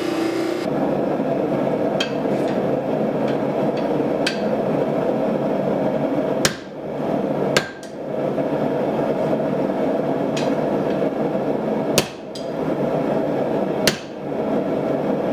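Hammer blows on a hot Damascus steel billet at the anvil, drawing it out into a bar: sharp ringing strikes at an uneven pace, about one every one to two seconds, a few much louder than the rest, over a steady roar.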